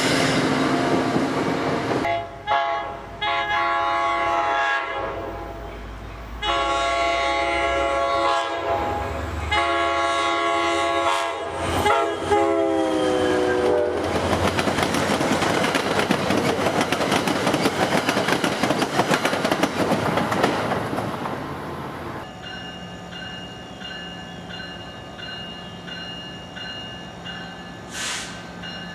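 NJ Transit passenger train sounding its multi-note air horn in several blasts at the grade crossing, the last one held long and dropping in pitch as the train goes by, followed by the rumble and clickety-clack of its coaches rolling past. After an abrupt cut, a crossing bell rings with a steady low hum underneath.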